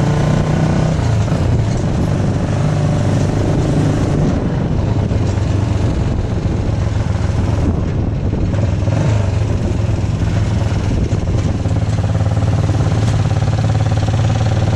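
Motorcycle engine of a passenger tricycle running steadily under way, heard from the sidecar, with road and wind noise.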